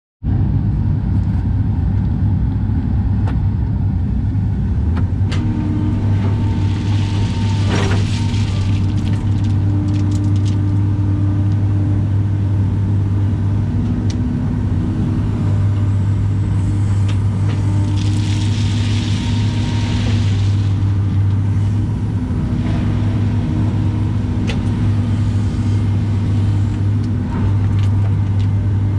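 Caterpillar excavator's diesel engine running steadily at working speed, heard from inside the cab, with a hydraulic whine that comes and goes as the boom and bucket move. Twice, about a third and two-thirds of the way through, a rushing hiss rises over it, with scattered clicks of gravel.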